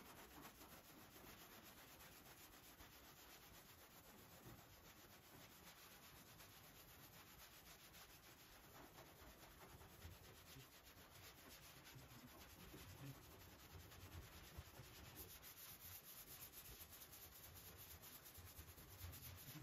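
Faint, steady scratching of hand block sanding: a long sanding block with 120-grit paper stroked back and forth over a primed car body panel.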